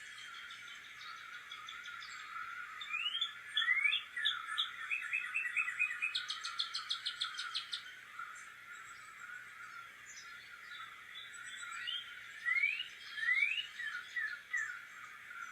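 Several backyard songbirds singing and calling: rising whistled notes, a quick run of repeated notes, then a fast trill about six seconds in, with more rising whistles near the end.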